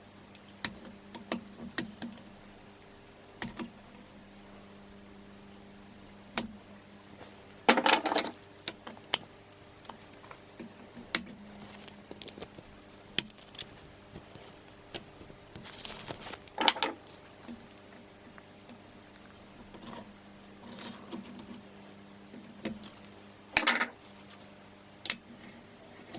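Metal clinks, taps and rattles of tools and parts being handled during a Honda CB450 engine teardown, with louder clattering about a third of the way in, midway and near the end. A steady low hum runs underneath.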